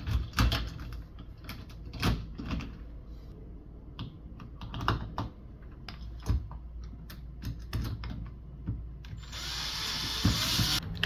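Irregular clicks and clacks of electronic door lock hardware being handled and fitted together, with a short burst of hissing noise near the end.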